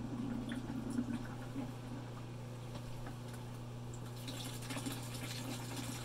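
Submersible pump humming steadily while the vinegar descaling solution circulates through the tankless water heater, with liquid trickling and splashing as it returns.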